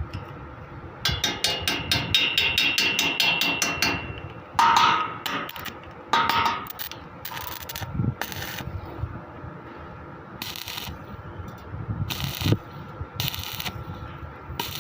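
Metal tool work on steel: a quick run of sharp strokes with a ringing metallic tone, then a couple of ringing clanks and scattered short scrapes.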